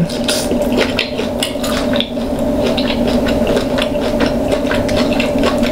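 Close-miked eating of seafood: a steady run of small, sharp clicks and clinks from shells and dishes being handled, with wet squishing, over a steady low hum.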